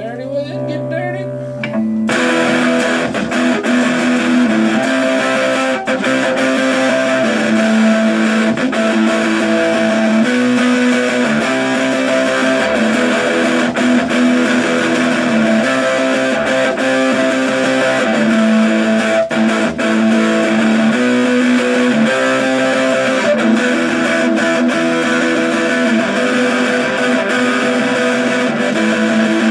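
Electric guitar played through a small homemade 9-volt battery-powered amplifier built into an ammo can, with no effects pedals. About two seconds in, the amp's shotgun-shell knob is turned up and the guitar becomes louder and brighter, playing a run of changing notes.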